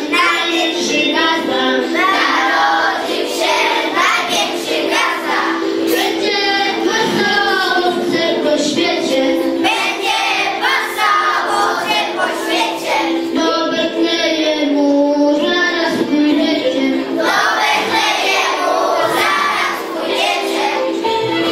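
A group of young children singing a Christmas carol together in unison.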